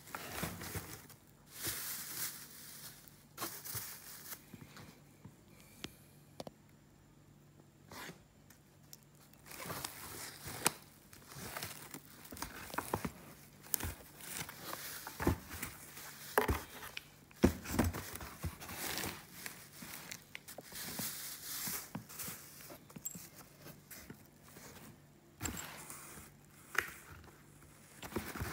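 Plastic and foam packaging rustling and crinkling in irregular bursts, with small knocks and scrapes, as a boxed engine is handled. A quieter stretch falls several seconds in.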